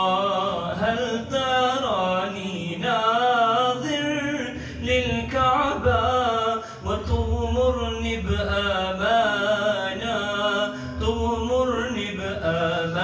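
Male voices singing an Arabic naat without instruments, in long drawn-out phrases of wavering, ornamented held notes.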